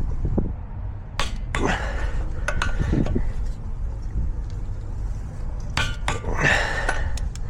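Torque wrench and socket on a wheel's lug nuts: a scatter of sharp metallic clicks and clinks, in two clusters about a second in and near the end, as the nuts are tightened to 150 ft-lb in a star pattern. A steady low rumble runs underneath.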